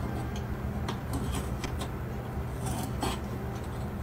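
Insulated electrical wires being pulled through metal conduit into a steel junction box, giving a scatter of short scrapes and clicks over a steady low hum.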